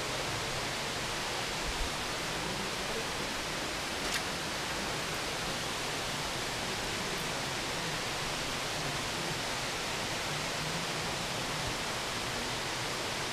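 Steady rush of water from a creek waterfall or rapids: an even hiss that does not change.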